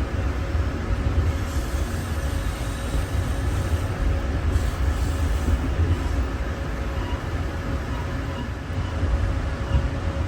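Interior ride noise of a moving GO Transit commuter train: a steady low rumble of the wheels on the track, with a faint steady hum over it and a brief rise in hiss a couple of seconds in.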